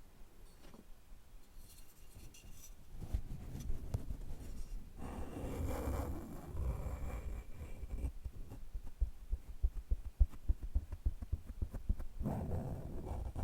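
Close-miked scratching and rubbing on small objects, with many small clicks and soft knocks. It is faint at first and grows busier and louder about three seconds in.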